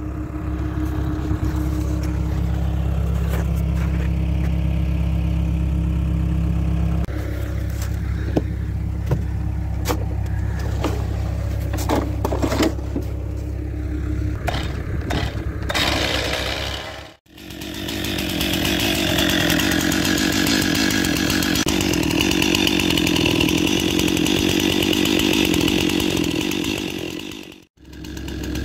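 A Stihl MS 261 C chainsaw: a steady engine idle with a few knocks, a rising rev about halfway through, then, after a cut, the saw running at high speed for about ten seconds.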